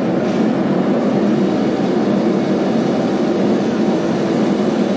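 Steady roar of a propane forge's burners running, an even rushing noise that does not change.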